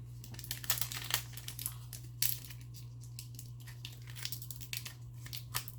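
Plastic trading-card pack wrapper crinkling as it is handled and torn open, in irregular crackles that are busiest in the first couple of seconds.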